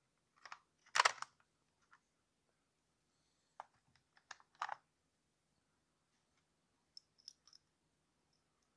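Steel threading dies and a die stock being handled in a plastic tap-and-die set tray: a few light clicks and clinks, the loudest about a second in. Small high ticks near the end as a round die is fitted into the die stock.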